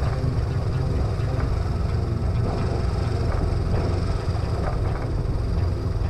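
Suzuki GS500E motorcycle riding downhill, its air-cooled parallel-twin engine running steadily under a heavy low rumble.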